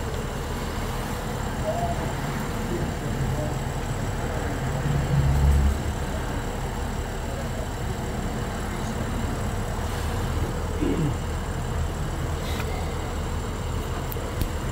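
Car engine running steadily, heard close in the engine bay, with a brief louder low rumble about five seconds in.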